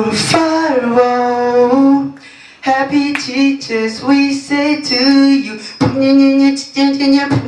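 A young man singing a melody into a handheld microphone, a string of held notes broken by short pauses, with a brief gap about two seconds in.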